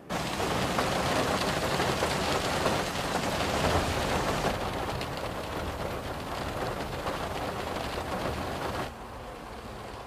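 Heavy rain falling, a dense crackling hiss that starts abruptly. Its brighter top end fades about halfway through, and it drops sharply in level about a second before the end.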